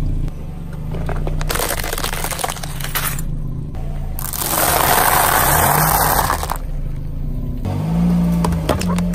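A car tyre rolls over and crushes things on asphalt, over the low hum of the car's idling engine. The loudest part, a long dense crunching in the middle, is dry tagliatelle nests being crushed. Sharp cracks and clicks follow near the end.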